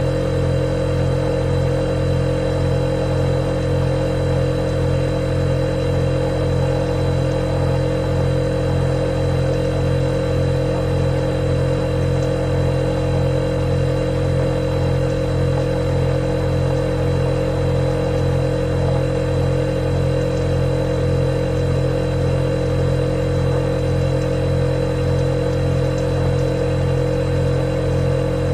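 Refrigerator running with a steady, unchanging hum: a low drone, a strong mid-pitched tone and a faint high whine on top.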